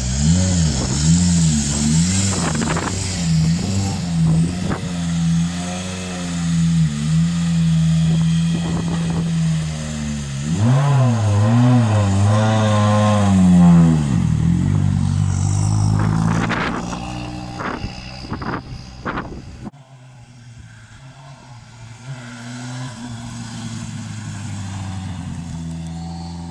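Toyota Yaris WRC's 1.6-litre turbocharged four-cylinder rally engine running with repeated throttle blips, its pitch rising and falling, and several sharp pops and cracks in the second half. After a sudden drop in level it is heard quieter and steadier as the car drives along, with wind on the microphone.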